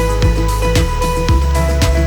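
Background music with a steady beat of bass drum hits about twice a second under held synth tones.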